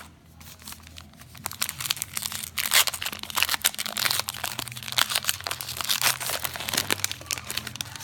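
Paper-foil wrapper of a trading-card pack being torn open and crinkled by hand, a dense irregular crackling that is loudest about three seconds in.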